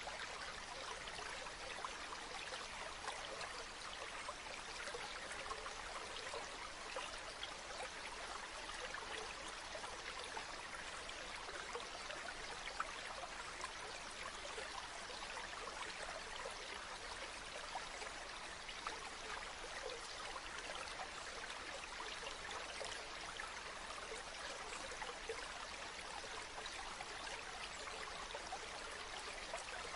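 Running water of a stream: a steady, even rush with small splashes and trickles.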